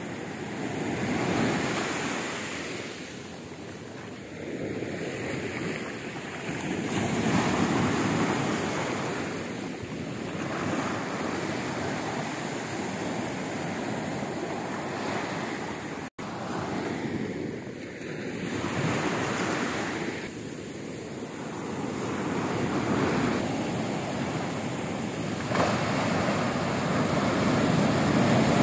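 Ocean waves breaking and washing up a sandy beach, the surf swelling and ebbing every few seconds.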